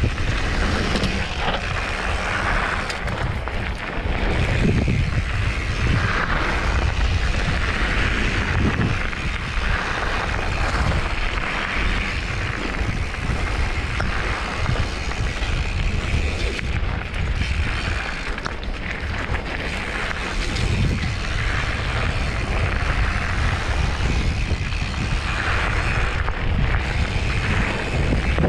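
Wind rushing over the microphone of a camera on a mountain bike riding fast down a loose gravel trail, with the tyres crunching over the stones and the bike rattling. A steady, heavy rumble with a noisy hiss over it.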